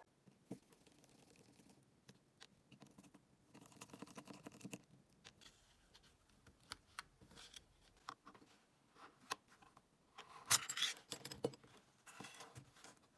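Small clicks, taps and scrapes of an iPod mini being taken apart by hand, as a screwdriver and fingers work its aluminium shell and internal parts. The loudest stretch of scraping and clicking comes a little after ten seconds in, as the logic board and screen are slid out of the casing.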